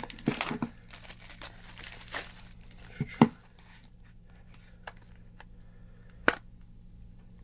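Plastic wrapping on a sealed box of trading cards being torn and crinkled for about three seconds, followed by two sharp knocks a few seconds apart.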